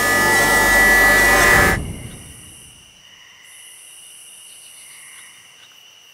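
A loud sustained drone fades out about two seconds in. It leaves night insects, crickets, chirring steadily and quietly.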